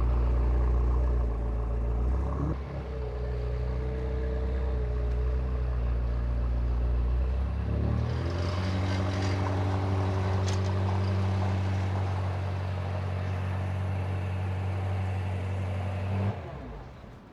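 BMW M8 Competition's twin-turbo V8 running steadily, its note settling at a different pitch about halfway through, then cutting off suddenly near the end.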